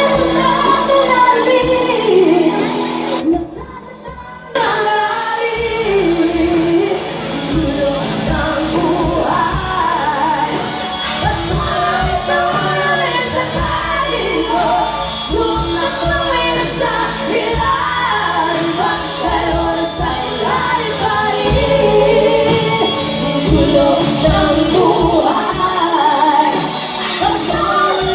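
Live band music with several women singing together into microphones over electric guitar and bass. The sound drops away for about a second a little over three seconds in, then the song carries on.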